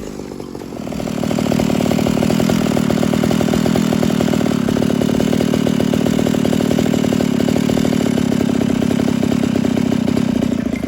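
Ported Pioneer 3270 two-stroke chainsaw engine revved up about a second in and then held at a high, steady speed.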